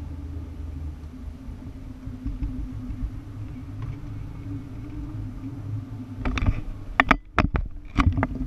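Steady low drone of an SUV cabin while driving, then, over the last two seconds, a quick run of sharp, irregular clicks and creaks as the dash-mounted camera is handled and repositioned.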